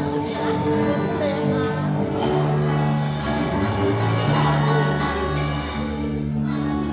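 Live church band playing an instrumental passage of a Portuguese-language worship song between sung lines, with long held chords over a steady beat.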